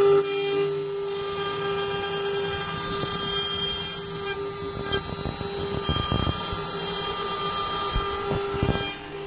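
Small desktop CNC router (3020/6040 type) running a horizontal finishing pass: a steady, high spindle whine with the axis stepper motors driving the cutter over the part, and a few low thuds in the second half. The sound drops off sharply near the end.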